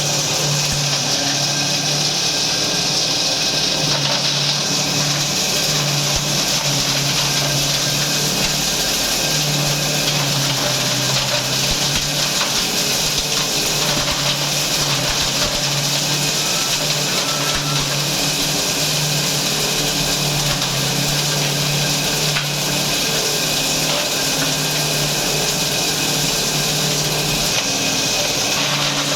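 Dry agricultural-waste grinder running continuously, a loud steady machine noise with a low hum that swells and fades every few seconds.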